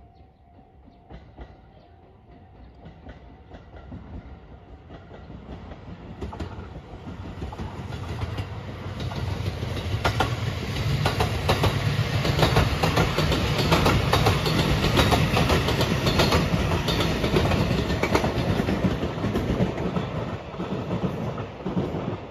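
Rapid Marine Liner electric train, a JR West 223-5000 series set with a JR Shikoku 5000 series double-deck car, approaching and passing close by. Its wheels clack rhythmically over the rail joints. The sound builds over about ten seconds, peaks as the cars go by, and fades near the end.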